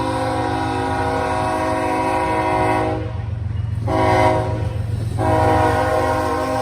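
Diesel locomotive air horn sounding a chord: a long blast that cuts off about three seconds in, a short blast a second later, then another long blast, the long-short-long ending of a grade-crossing signal. A steady low rumble from the train runs underneath.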